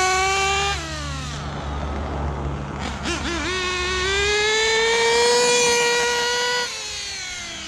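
Dynamite .28 big block nitro engine in an RC rally car running at high revs. It holds a high whine, drops off about a second in, and blips briefly. It then climbs and holds full throttle for about three seconds before falling away near the end.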